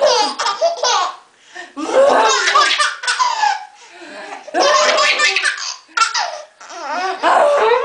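Baby laughing hard in about five bursts of giggles during a game of peekaboo, with an adult's voice mixed in.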